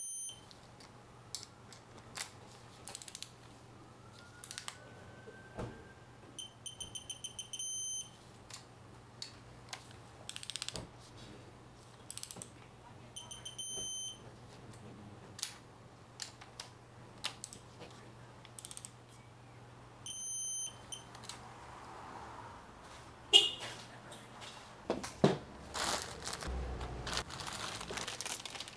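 An electronic beeper gives a quick run of high beeps four times, about every seven seconds, amid scattered clicks and knocks of tools being handled. Louder knocks and clatter come near the end.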